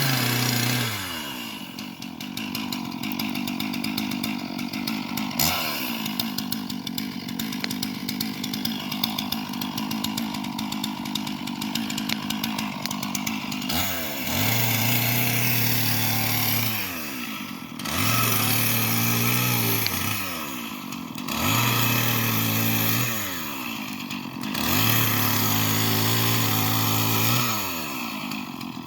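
Two-stroke chainsaw running at low speed, then revved up four times in the second half, each held about three seconds before dropping back, as it cuts firewood.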